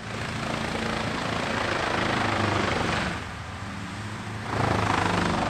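A heavy machine's engine running steadily, with two long surges of louder, harsher noise about three seconds apart.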